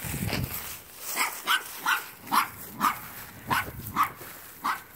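Puppy yipping: about eight short, high barks at irregular intervals.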